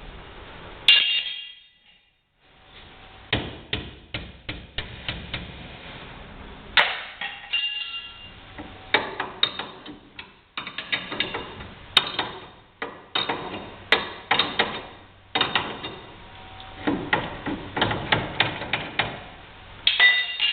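Irregular metal knocks and taps, some in quick runs, a few ringing briefly, from hand-tool work on a car's front suspension while a coil spring is worked into its seat.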